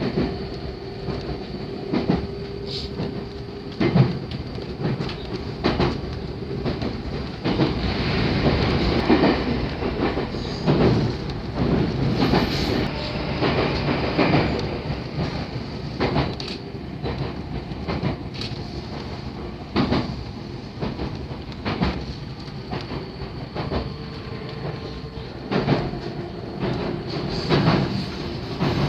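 JR 313-series electric train running along the line, heard from inside the car: a continuous rumble with wheels clacking over rail joints every second or two. A steady hum sounds at the start and comes back near the end.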